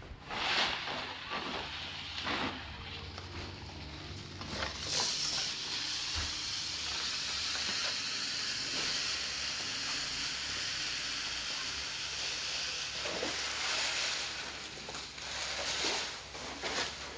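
Small dry grains pour in a steady stream from a sack onto a cloth, a continuous hissing rush from about four seconds in until around fifteen seconds. Rustles and knocks of the sack being handled come before and after it.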